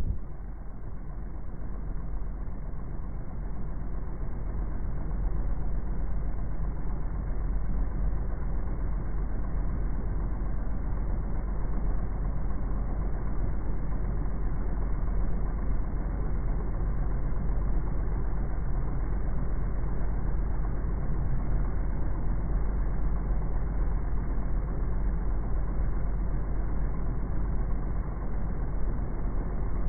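Steady low rumble of outdoor noise, pitched down and dulled by slow-motion playback, with no distinct events.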